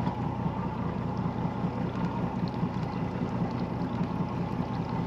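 Bass boat's outboard motor running at idle, a steady low drone, as the boat idles slowly over a ledge.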